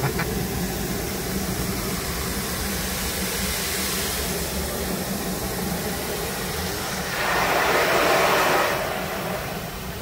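Water jets of a WashTec automatic car wash spraying over the car's windshield and body, heard from inside the cabin as a steady rushing noise. It swells louder for about a second and a half, around seven seconds in, as the spray passes over.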